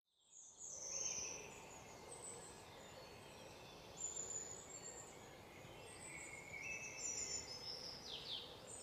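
Faint outdoor ambience: small birds chirping and twittering at intervals over a steady low background noise.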